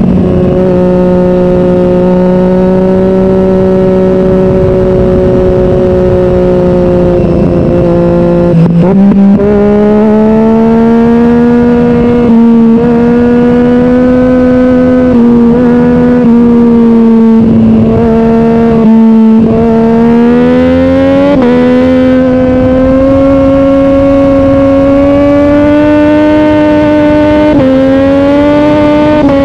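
Sport motorcycle engine running at high revs under way, holding a fairly steady pitch. Its pitch dips briefly about a third of the way in, then climbs slowly and steps up twice toward the end.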